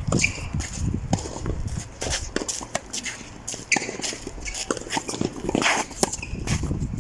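Footsteps and light scuffs on a clay tennis court, with scattered short taps, several a second and irregular.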